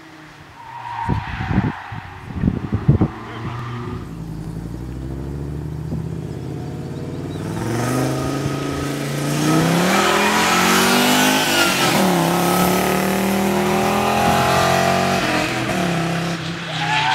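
Audi Coupé car engine accelerating hard past on a track, its pitch climbing, dipping briefly about halfway, then holding steady under load. A few dull low thumps come about a second in.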